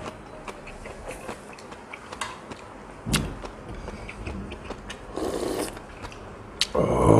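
Close-miked eating sounds of a man eating offal stew with ramen: chewing with small wet mouth clicks, a sharp click about three seconds in, and a louder burst of noisy eating sound near the end as he takes a spoonful.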